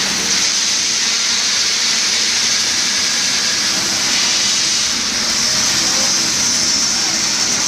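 Concrete pump running steadily, a constant loud mechanical noise with a hiss, while it pushes concrete through the boom's delivery pipe.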